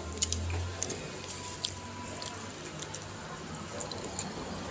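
Popcorn rustling and crackling as a hand grabs pieces from a glass bowl, with scattered crunchy clicks from chewing.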